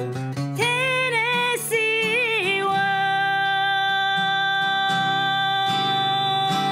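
A female singer sings a slow country waltz with vibrato over acoustic guitar strumming, then holds one long steady note from about two and a half seconds in.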